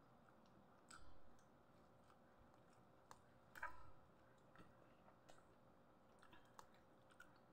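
Near silence broken by a dozen or so faint, scattered clicks and small taps of people eating at the table.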